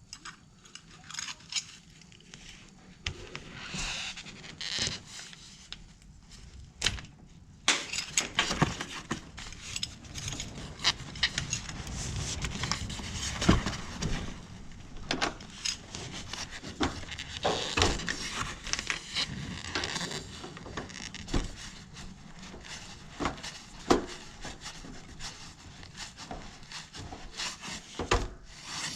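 Adjustable wrenches clinking and scraping on the flare nuts of a mini split's copper refrigerant line set as the connections are tightened. Irregular metal clicks come over rustling handling noise.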